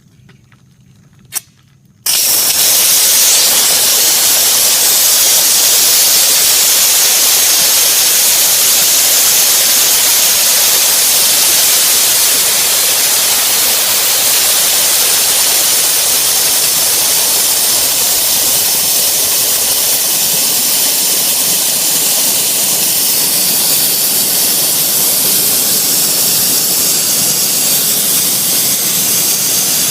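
Compressed air blasting out through the open drain valve under a Kobalt 17-gallon air compressor's tank, spraying out the moisture that has built up inside. A click, then the loud steady hiss starts suddenly about two seconds in.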